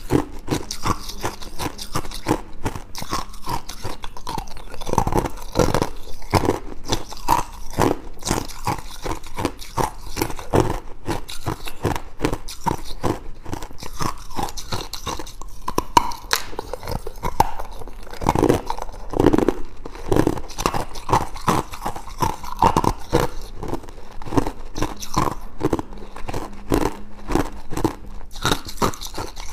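Clear ice cubes bitten and chewed: a dense, continuous run of sharp cracks and crunches.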